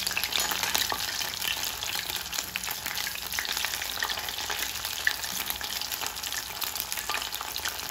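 Batter-coated mushroom and capsicum pieces deep-frying in hot oil in a steel kadai over a low flame: a steady crackling sizzle of many tiny pops.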